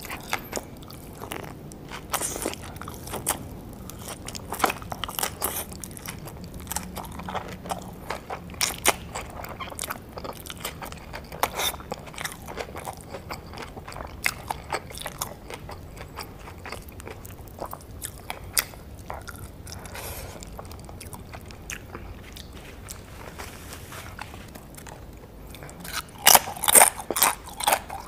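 Close-miked biting and chewing of crisp-fried birria tacos: irregular crunching and crackling of the fried tortilla, with a run of louder crunches near the end.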